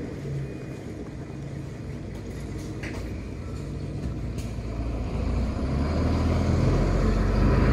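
Bus diesel engine running and pulling away, growing steadily louder over the second half, with a brief hiss a few seconds in.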